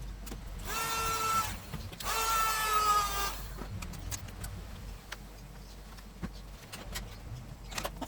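A small electric motor whining in two bursts, the first about a second long and the second about a second and a half, each sagging slightly in pitch. A few faint clicks follow.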